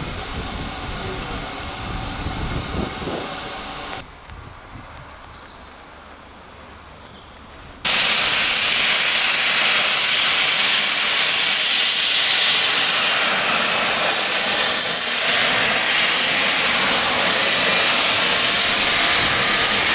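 A steam locomotive venting steam in a loud, steady hiss that starts suddenly about 8 seconds in. Before that come quieter steam-engine sounds, which drop away about 4 seconds in.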